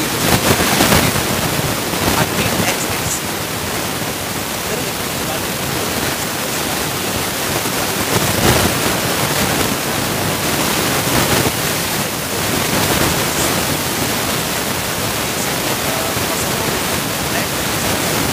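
Steady, loud hiss with no speech, spread evenly from low to high pitch, with a few faint brief clicks.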